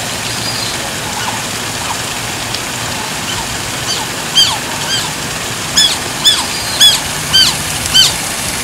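Otter giving a string of short, high-pitched squeaking chirps, about eight to ten of them, starting about halfway through, over the steady splash of running water in the enclosure.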